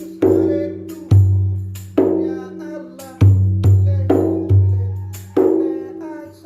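Rapai, the Acehnese frame drum, struck by hand in an unhurried pattern of single strokes about every half second to a second, each stroke ringing on; some give a deep low tone, others a higher, sharper tone.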